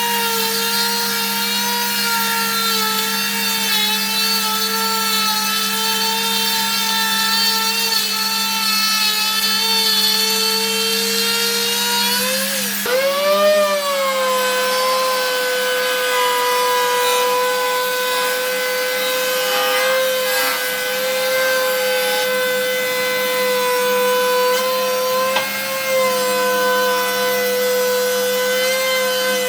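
An electric woodworking power tool running while cutting wood, its motor giving a steady high whine; the pitch sags sharply about thirteen seconds in, as the tool is loaded, then recovers.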